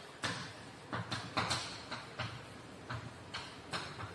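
Chalk tapping and scratching on a blackboard as words are written: a run of short, irregular taps, about three a second.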